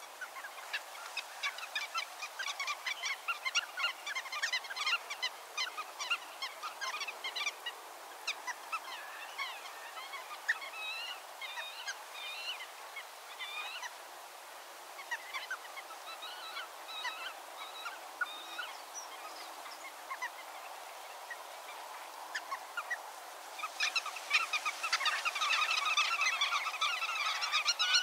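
A flock of water birds calling: a steady stream of short calls, then about 24 seconds in a denser, louder chorus of many birds calling over one another.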